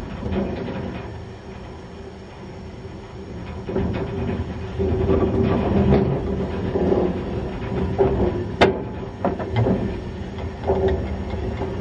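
Steam locomotive running on the line: a low rumble that grows louder about four seconds in, with scattered clanks and knocks and one sharp crack about eight and a half seconds in.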